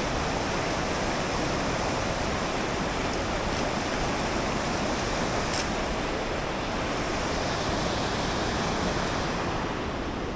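River rapids rushing: a steady noise of water running down the rapids and under the ice.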